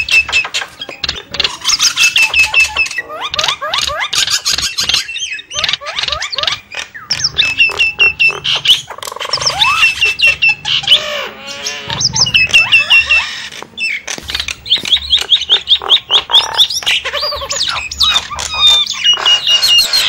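Javan mynas calling in a noisy chorus: series of quick whistled notes, harsh squawks and clicking chatter overlapping almost without pause.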